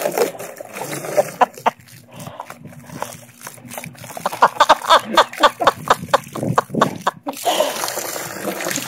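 German Shepherd biting and snapping at a garden hose's spray: a quick run of wet snaps and splashes, about five a second, through the middle part, over the splatter of the water.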